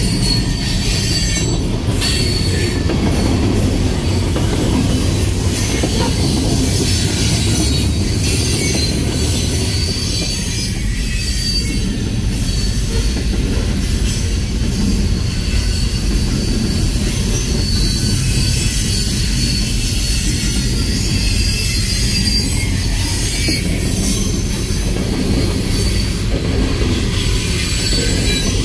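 Loaded coal train cars rolling steadily past: a continuous heavy rumble of wheels on rail, with high-pitched wheel squeal coming and going and occasional clicks.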